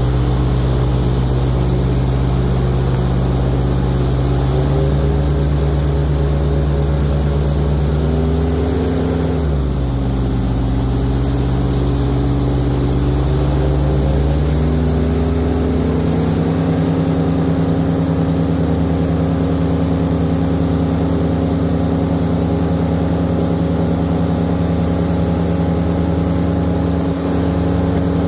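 Airboat's engine and big air propeller running loud and steady while underway, its pitch rising a little about five seconds in, dropping sharply around ten seconds in, then climbing back and holding steady for the rest.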